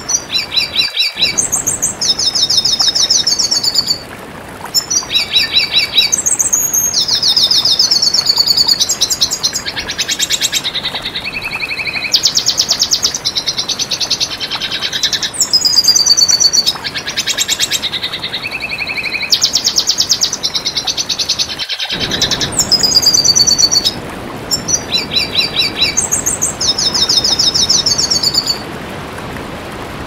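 Red siskin singing a long, fast song of rapid twittering trills and buzzy chirps, over a steady background hiss. The song stops shortly before the end.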